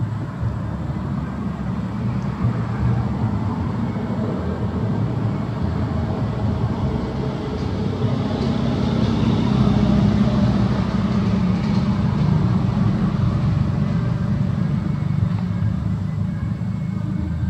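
Steady low rumble of outdoor background noise, swelling a little midway.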